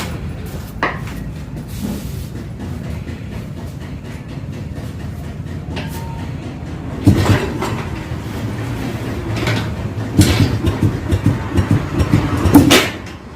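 Old Jawa two-stroke motorcycle being kick-started: a steady low engine hum, with louder clattering kicks about seven seconds in and again from about ten to thirteen seconds in.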